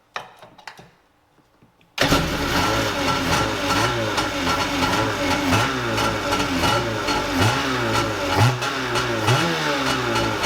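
Newly installed Kawasaki 750 two-stroke twin jet ski engine running, with the throttle blipped about four times in quick rises of pitch. The engine sound cuts in suddenly about two seconds in, after a few faint knocks.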